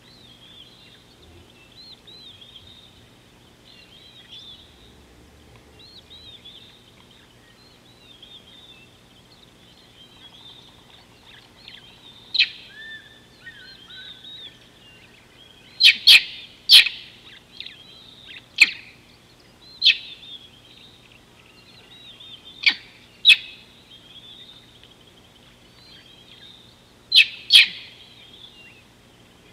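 Birds calling: a steady chatter of small bird calls, joined from about twelve seconds in by about ten loud, sharp, very short calls, several of them in quick pairs.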